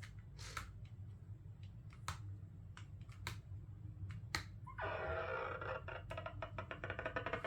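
Scattered light clicks of a reading pen's tip tapping on the book, then about five seconds in a sound effect starts through the small speaker: a dense, crackly rattle that breaks into fast repeated clicks. A steady low electrical hum sits underneath.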